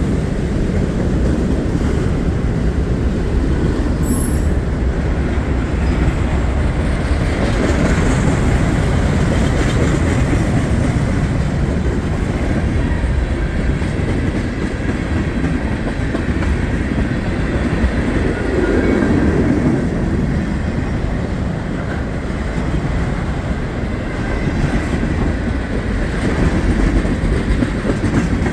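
Norfolk Southern freight train's cars rolling past, a steady, loud noise of steel wheels running on the rails.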